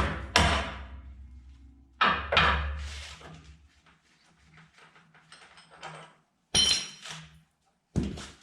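Hammer strikes on a bolt driving a seized body mount out of a pickup frame: a blow at the start and two more about two seconds in, followed by lighter metal clinks, a bright ringing metallic clank and one last knock near the end, as the mount comes free.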